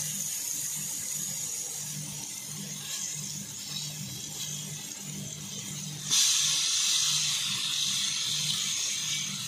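Stuffed whole eggplants sizzling in oil on a flat iron tawa: a steady hiss that turns louder about six seconds in, as one eggplant is turned over into the hot oil. A low, even hum runs underneath.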